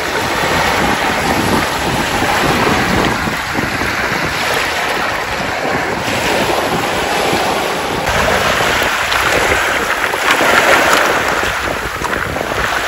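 Small saltwater waves breaking and washing over a beach of rounded pebbles, a continuous rushing surf, with one louder wash about ten seconds in. Wind buffets the microphone throughout.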